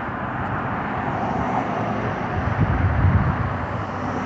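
Snowstorm wind rushing steadily over a phone microphone, with irregular low gusts buffeting it.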